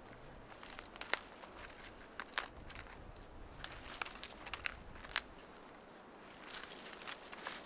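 Dry twigs and thin dead branches snapping and crackling as they are broken by hand, a series of sharp snaps amid rustling of brush.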